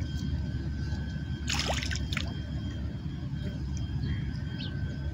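Shallow sea water lapping and sloshing at the shoreline over a steady low rumble, with one brief sharp noise about a second and a half in.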